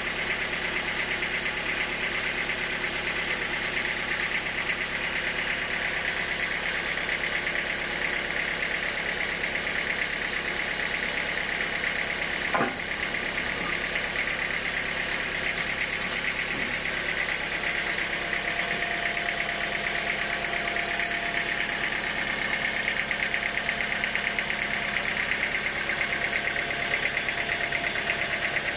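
Sawmill machinery running steadily: a motor's fast, even drone with a steady high tone on top, and a single sharp knock about halfway through.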